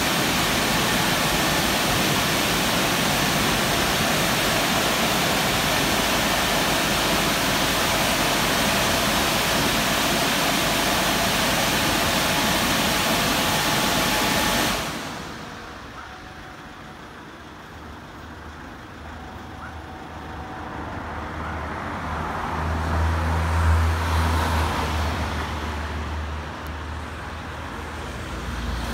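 Gantry car wash's drying blowers running with a steady loud rush of air that cuts off about halfway through. Then a car engine idles and revs lightly as the SUV pulls forward out of the wash bay, loudest a few seconds before the end.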